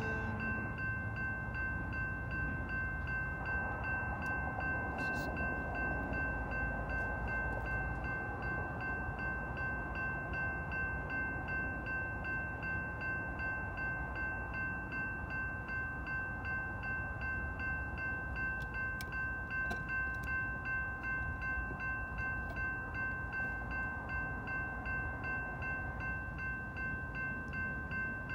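Railroad grade-crossing bell ringing steadily and rapidly while the crossing stays activated, over a low rumble from the train on the tracks.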